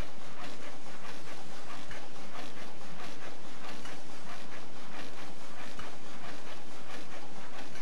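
Vertical form-fill-seal packaging machine running: a steady mechanical clatter with rapid clicking, and a low thump about every two seconds as it cycles through each bag.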